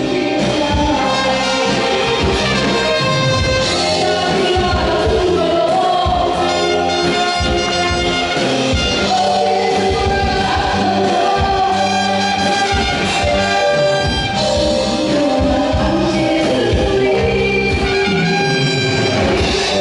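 A woman singing a Korean trot song into a microphone over a full band accompaniment, with trumpet and trombone playing along.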